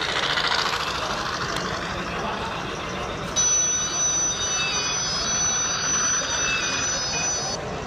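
Model train cars rolling close past on curved track, a steady running rumble and rattle of wheels on rail. About three and a half seconds in, a high, steady thin tone starts suddenly and holds for about four seconds before stopping.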